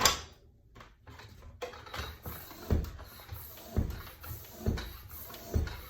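Bicycle pump inflating a road-bike inner tube: a sharp click as it goes on, then steady pump strokes with a low thud about once a second over a hiss of air.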